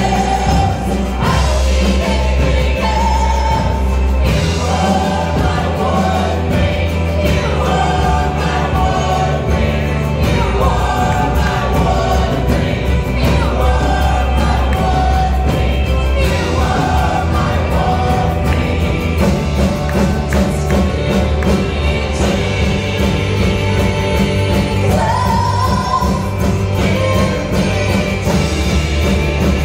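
Live worship band playing a praise song: several voices singing together into microphones over drums, keyboard and a steady bass line.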